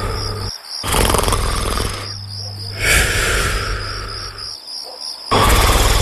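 Cartoon snoring, three loud snores about two seconds apart, over a steady chorus of chirping crickets.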